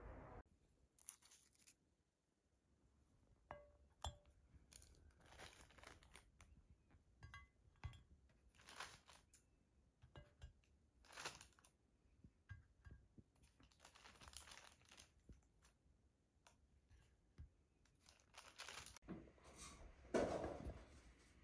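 Large baked cookies handled and broken apart by hand: quiet scattered crackles and rustles, with a louder crumbly crunch near the end as one is snapped open.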